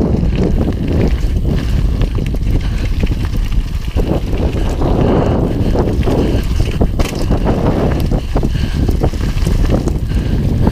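Wind buffeting the microphone of a helmet-mounted action camera during a fast mountain-bike descent, with the UMF Freddy One's tyres rolling over dirt and loose gravel and frequent clicks and rattles from the bike.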